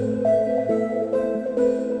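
Background music: a gentle melody of held notes changing a few times a second over a sustained low note.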